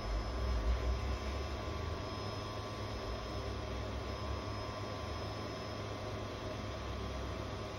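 Hot-air rework station blowing steadily on a phone's power-management chip to melt its solder and lift it off, a even rush of air over a low hum.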